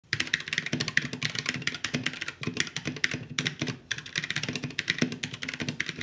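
Fast typing on a Keyboard Lab Timber mechanical keyboard with Gateron brown switches, which are not clicky but quite noisy: a rapid, continuous run of key clacks with a couple of brief pauses about halfway through.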